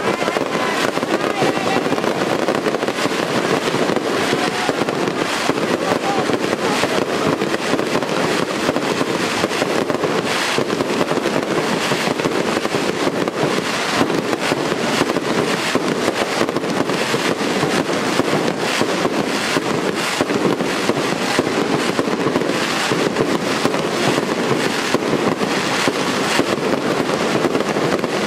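Daytime festival fireworks going off in a dense, unbroken barrage: a continuous rattle of rapid bangs and crackling reports that keeps up without a pause.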